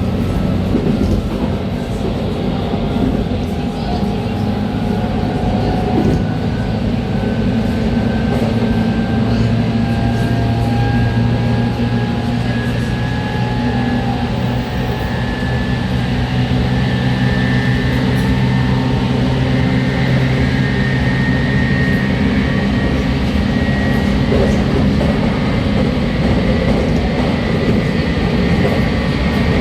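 Running sound inside a JR Kyushu 813 series electric train car, heard from its KuMoHa 813-207 motor car: the traction motor and inverter whine rises slowly in pitch as the train gathers speed, over a steady rumble of wheels on the track.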